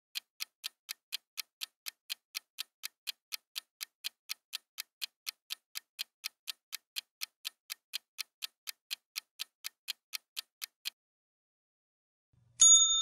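Countdown-timer sound effect ticking like a clock, about four ticks a second for some eleven seconds, then stopping. Near the end a single loud ding rings out and keeps ringing, signalling time up.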